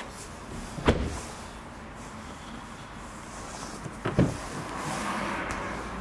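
Two solid thuds of an Audi Q5's doors being shut, about three seconds apart; the second comes just after a light click.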